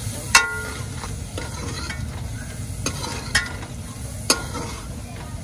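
Metal spoon stirring kaleji (goat liver) and masala frying in ghee in an aluminium pot on a gas burner: a steady frying sizzle broken by a few ringing clanks of the spoon against the pot. The loudest clank comes about half a second in.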